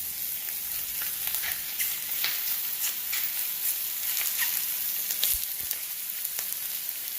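Chicken pieces sizzling in a preheated Saladmaster stainless steel skillet with no added oil, frying in their own fat: a steady high hiss with scattered pops and crackles.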